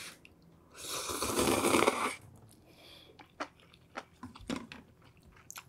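A person slurping up a mouthful of noodles from spicy soup: one long loud slurp starting about a second in and lasting just over a second, followed by soft, wet chewing with small clicks.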